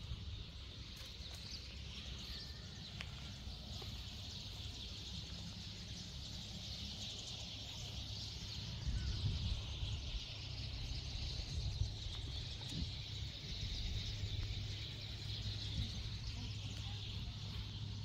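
A steady high-pitched chorus of outdoor animal calls that swells and eases, over a constant low rumble.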